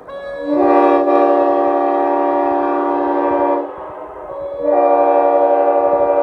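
Nathan Airchime K5LA five-chime locomotive air horn from an MBTA F40 sounding a steady chord of several notes. One blast lasts about three seconds and then drops away; a second blast starts about a second later.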